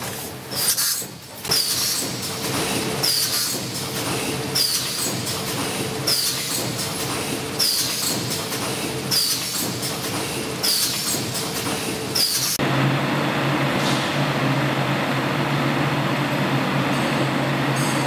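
Automatic double-roll-film pouch packing machine running in cycles, a sharp clack about every second and a half over a steady mechanical tone, each clack one stroke of the sealing and cutting heads. About twelve seconds in, the sound changes abruptly to a steady machine hum and noise.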